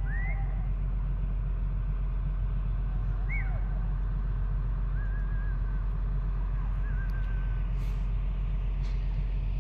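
Excavator's diesel engine idling with a steady low rumble. A bird gives a few short rising chirps and trills over it.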